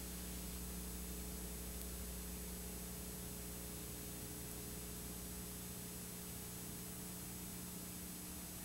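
Steady low electrical hum with hiss, the background noise of the recording itself, with no speech or music.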